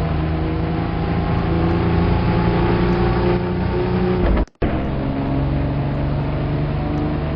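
Car engine running with a steady drone of several held low tones, cutting out abruptly for a split second about four and a half seconds in.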